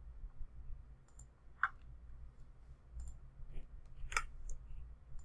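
A few sharp computer mouse clicks, spaced irregularly, over a faint low steady hum.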